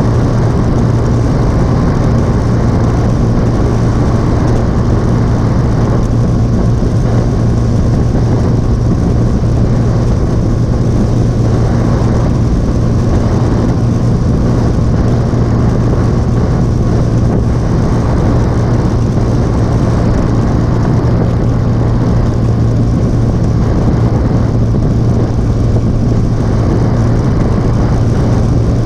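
Motorcycle engine running steadily at cruising speed, a constant low drone with no change in pitch, under a continuous rush of wind and road noise.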